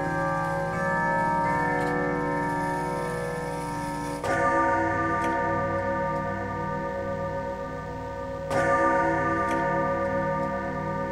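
Grandfather clock striking: a deep bell chime strikes twice, about four seconds apart, each stroke ringing on over the clock's steady ticking.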